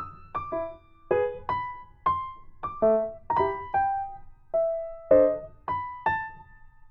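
Background music: a gentle piano-like keyboard melody of single struck notes that ring and fade, a few notes a second.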